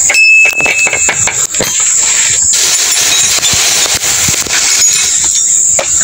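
Clicks and knocks of a hand tool working on a mini chainsaw's body during disassembly, over a steady high insect chorus. For about two seconds in the middle a crinkling rustle, a plastic bag being handled.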